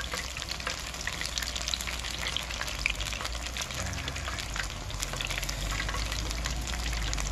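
Battered onion rings and vegetable pieces deep-frying in a wok of hot oil: a steady, dense sizzle full of fine crackling spatters.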